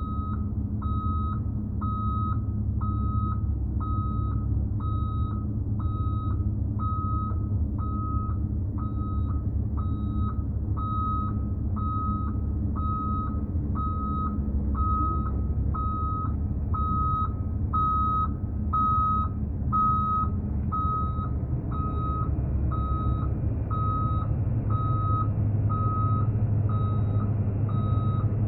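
Heavy equipment's reversing alarm beeping steadily about once a second over a running diesel engine, which grows louder about three-quarters of the way through.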